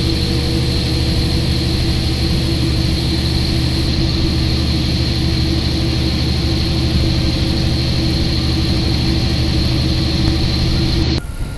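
KiHa 40 diesel railcar under way: its diesel engine drones steadily, with running noise heard inside the carriage. The sound drops abruptly to a quieter running noise near the end.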